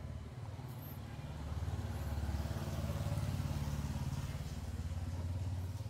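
A small motorcycle engine running with a low, even rumble. It grows louder about a second and a half in and then holds steady.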